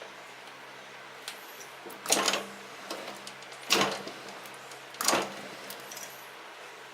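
Hand work on a snow thrower's transmission: three loud clunks about a second and a half apart, each dying away quickly, with a few lighter clicks between.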